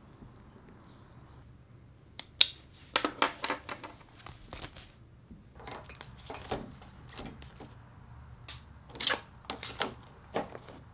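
Objects being handled and set into a metal wire desk rack: a run of sharp clicks, knocks and light rattles, starting about two seconds in, as a hardcover planner and a plastic calculator are slotted in.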